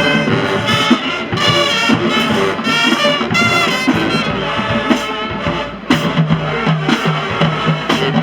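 High school marching band playing a brass-led tune: short punchy horn phrases over drums and low brass, with a brief drop in the music a little before six seconds in.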